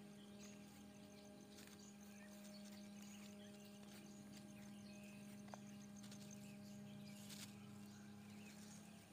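Near silence but for a faint, steady low hum at one pitch that stops near the end, with a few faint rustles.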